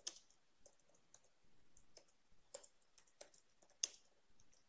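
Faint, irregular keystrokes on a computer keyboard as text is typed, with one sharper, louder key click a little before the end.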